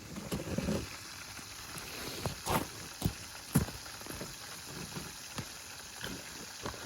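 Fish fillets frying in hot oil: a steady sizzle with a few short sharp knocks.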